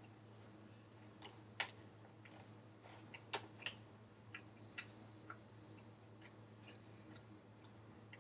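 Quiet eating: scattered small sharp clicks of someone chewing snack food, loudest at about a second and a half in and in a cluster a little past three seconds, over a steady low electrical hum.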